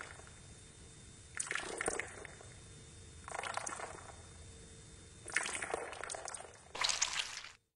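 Ear-cleaning sound effect of tweezers working earwax loose and pulling it out of the ear canal: four bursts of crackling noise about two seconds apart, the last one cut off suddenly near the end.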